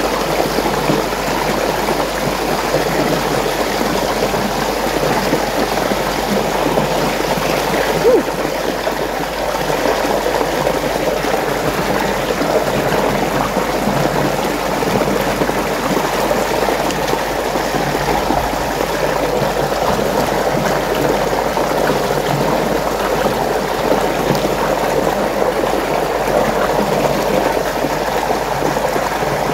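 Water rushing and swirling steadily in a whirlpool, with one brief knock about eight seconds in.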